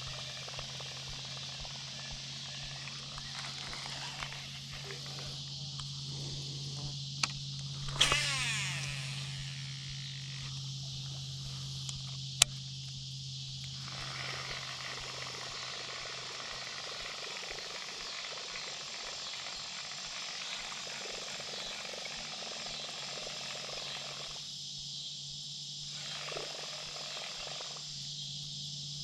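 Evening chorus of insects and frogs, a steady high-pitched buzz over a low drone. About eight seconds in there is a brief sweeping whoosh, and a few seconds later a single sharp click.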